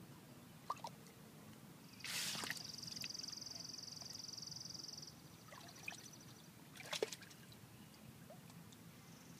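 Akita puppy pawing and nosing in a shallow plastic pool fed by a garden hose: water trickling and sloshing, with a few light splashes. About two seconds in, a splash is followed by a high, steady hiss lasting about three seconds.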